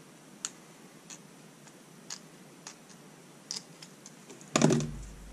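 Thin plastic parts being handled: a few light, sharp clicks of a half-millimetre styrene strip against the clear plastic housing. About four and a half seconds in comes a louder knock, as something is set down or picked up on the work mat.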